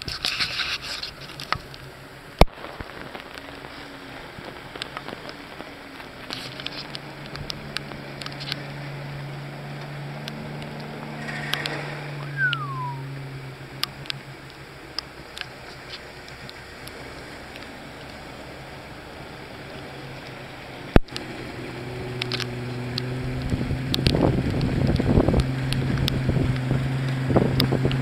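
A Jeep's engine runs at a steady low drone as it wades through deep floodwater, growing louder in the last few seconds as it comes closer. Water splashes and crackles around it, and rain patters on the water.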